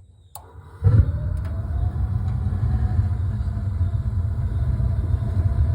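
Gas water heater's main burner lighting off the pilot: a faint click, then just under a second in a sudden whoosh as the gas ignites, settling into a steady low rumble of burning gas with a faint tone that rises slightly and holds.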